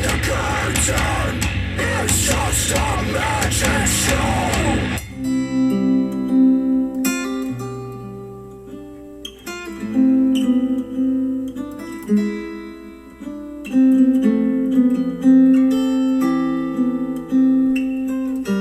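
Music played through a JBL Charge 4 Bluetooth speaker. A dense, loud rock track with singing stops about five seconds in, and a sparse acoustic guitar piece of single plucked notes and chords follows.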